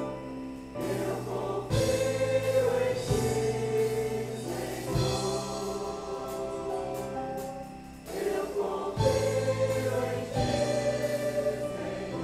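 Voices singing a Portuguese worship chorus together, backed by a live band with guitar and drums; a few drum hits land irregularly, and the music eases briefly about two-thirds of the way through before picking up again.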